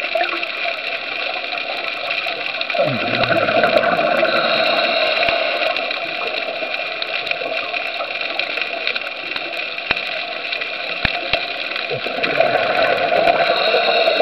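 Underwater ambience picked up by a camera in its housing: a steady rushing water noise with a constant hum, swelling louder with a falling low rumble about three seconds in and again near the end.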